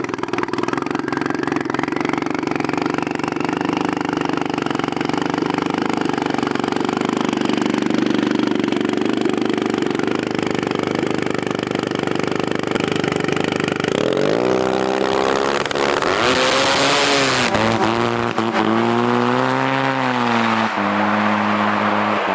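Snowmobile engines running hard in a race, a steady loud drone. About two-thirds of the way through, a nearer engine takes over, its pitch climbing and dipping as it revs, with a brief loud hiss in the middle.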